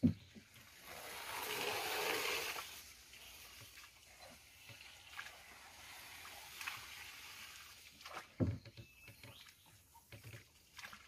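Water sloshing around a small rowboat being paddled, with a louder rush of water between about one and three seconds in and a single knock near the end.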